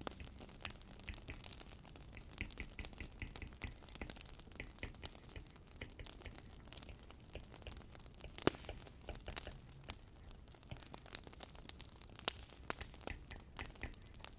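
Wood fire crackling, with irregular small pops and snaps over a low steady rumble. The sharpest pop comes about eight and a half seconds in.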